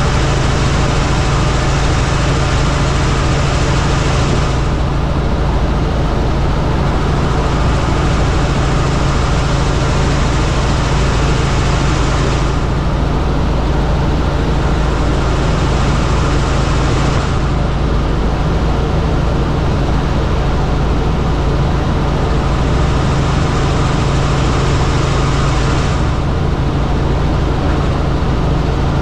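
Helicopter in flight: a loud, steady drone of engine and rotor with a strong low hum. The hiss on top thins out and returns a few times.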